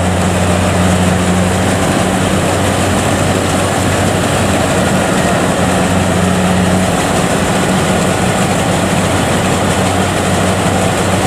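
Kubota DC70 combine harvester's diesel engine running steadily with a constant low drone, the tracked machine bogged down and crawling through deep mud.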